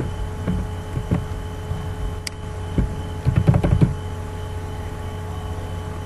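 Computer keyboard keys clicking as a copied line of text is pasted again and again, a few scattered presses and then a quick run of several about three and a half seconds in, over a steady electrical hum.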